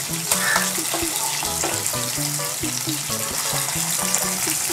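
Chicken breast steaks shallow-frying in hot oil in a pan, a steady sizzle, with a melody of background music playing over it.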